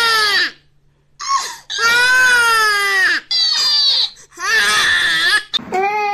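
Infant crying hard in long wailing bouts, with a short catch of breath about a second in and brief breaks between cries.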